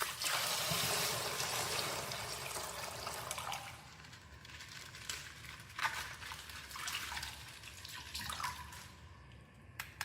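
Plastic toy packaging rustling and crinkling as it is handled and opened. A steady rustle for the first few seconds, then scattered faint crackles and clicks.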